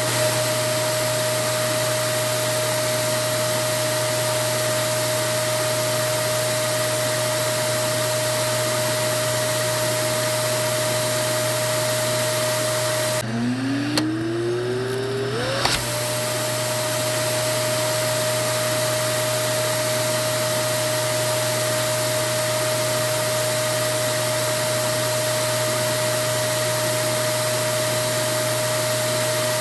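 Vacuum cleaner running steadily: an even rushing hiss with a steady motor whine. About 13 seconds in, the hiss briefly drops and the motor whine rises in pitch for two or three seconds, like the motor spinning back up, before it settles back to steady running.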